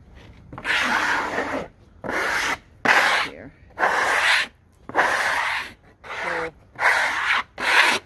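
A hand brush swept in repeated strokes across the fresh-sawn face of a box elder slab, about eight strokes at roughly one a second.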